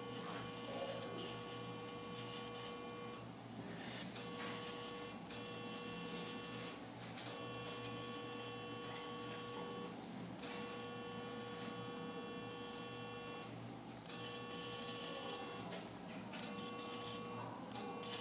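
Electrosurgical unit's activation tone: a steady electronic tone that sounds in six stretches of two to three seconds with short gaps, each time the electrocautery pencil is keyed to cut through the dog's skin and tissue. Faint hissing comes with several of the stretches.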